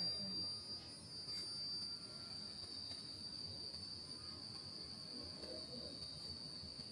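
Insects droning steadily at a high pitch, an unbroken outdoor chorus.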